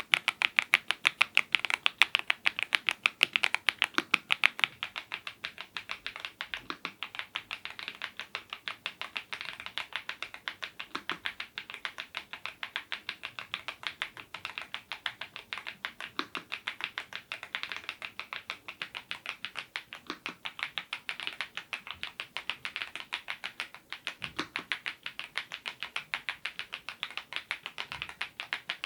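Typing on a Yunzii IF99 full-size mechanical keyboard with lubed Gateron Zero switches: a rapid, steady run of keystrokes, louder for the first few seconds and then softer.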